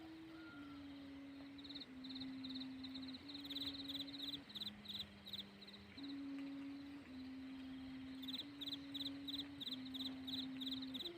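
Thai kite hummer (sanu) on a flying kite droning a steady wailing hum, its pitch stepping up and down every second or so as the wind changes and dropping lower for a moment about halfway through. Rapid high chirping comes and goes behind it.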